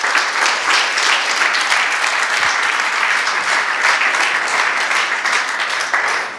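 Audience applauding steadily, tailing off near the end.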